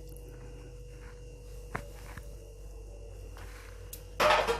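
Faint steady hum with a couple of light clicks, then near the end a short, loud clatter and scrape as boiled vegetables are tipped into a pan.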